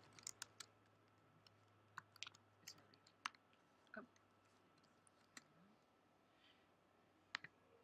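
Faint, irregular clicks of a computer keyboard being typed on, a dozen or so separate keystrokes with a few sharper ones among them.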